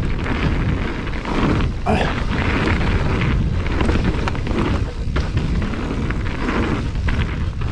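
Wind rushing over the camera microphone as a mountain bike rides a small dirt jump line, with tyre and trail noise and a few knocks from the bike.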